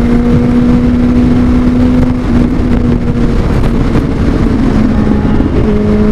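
Motorcycle engine running at a steady high pitch while riding, with heavy wind noise on the microphone; the pitch drops slightly near the end.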